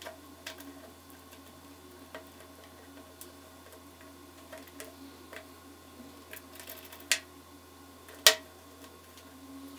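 Small clicks and taps of clear acrylic frame parts being handled and fitted together, with two sharp clacks about seven and eight seconds in, the second one the loudest.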